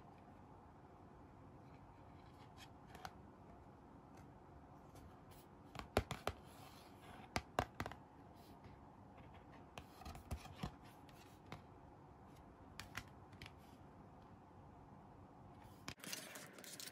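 Hands handling a paper toy medical-chart booklet: pages turned and fingers rubbing and tapping on the card, with clusters of sharp paper crackles and clicks about six to eight seconds in and again around ten seconds in.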